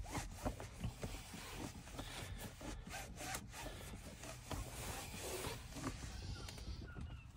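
Microfibre cloth rubbing over a car's plastic door trim and fabric door card, a busy irregular scrubbing swish as interior detailer is wiped on, easing off about six and a half seconds in.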